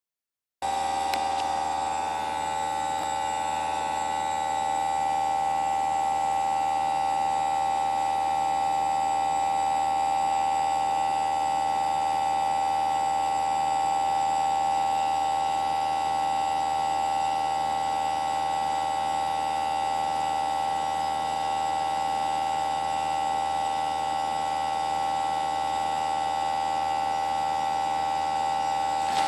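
Newly installed Greenspeed heat pump running noisily: a steady hum of several even tones, the strongest a mid-pitched whine.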